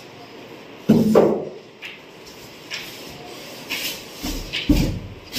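Foam packing and cardboard carton being handled as a boxed TV is unpacked: a loud scrape about a second in, light rustling and knocks, then dull thumps near the end as the TV is lifted out.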